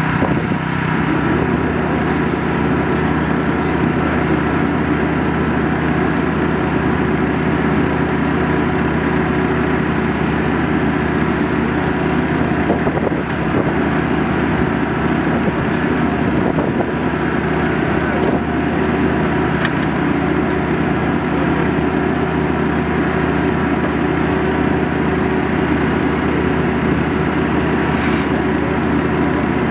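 Excavator's diesel engine running steadily at one constant speed while it lifts a heavy section of pipe on a chain.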